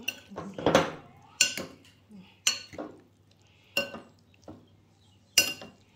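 A utensil clinking against a bowl while a pasta salad is mixed: sharp, ringing clinks at uneven intervals about a second apart, with softer knocks between.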